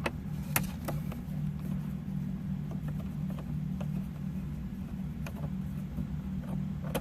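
Steady low hum inside a car, with a few light clicks and taps from a screwdriver working at the instrument cluster screws on the dashboard.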